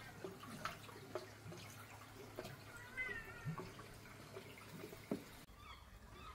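A cat meows once, briefly and faintly, about three seconds in. Around it are small water drips and splashes from koi at the pond surface.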